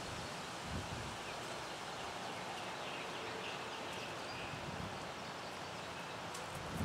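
Steady outdoor background ambience, an even hiss, with a few faint high chirps, likely distant birds, a few seconds in.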